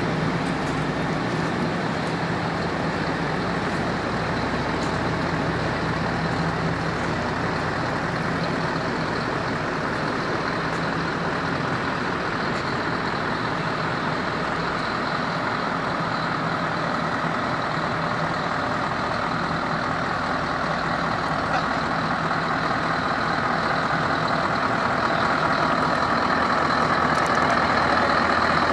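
Heavy diesel truck engines idling together, a steady running noise that gets louder near the end.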